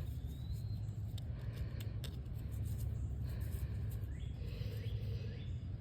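Faint metallic clicks and small scraping sounds of a dug-up pocket knife being handled and turned over, over a steady low background rumble.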